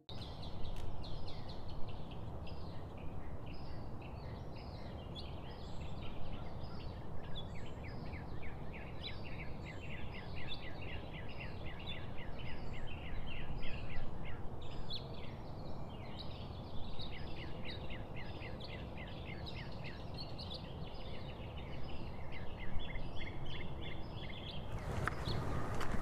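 A dense chorus of birds chirping: many quick, repeated high notes over a steady low background rumble, thinning out near the end.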